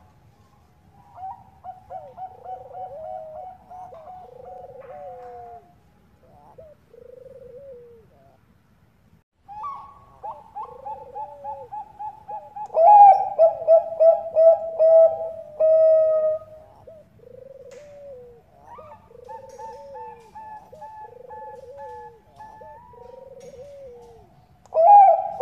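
Zebra doves (Thai-bred 'bangkok' perkutut) cooing: several phrases of quick, repeated, trilled notes, with a louder phrase about half way through.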